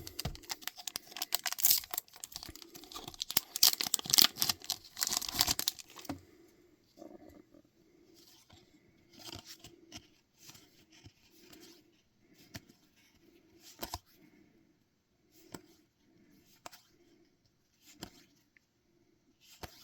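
A trading-card booster pack's wrapper torn open and crinkled for about six seconds, then quieter scattered soft ticks and slides of cards being handled.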